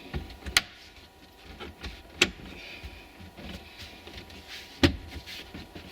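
Plastic interior trim panel being pressed into place: three sharp snaps as its clips click into their mounting spots, with light handling knocks and rustles between them.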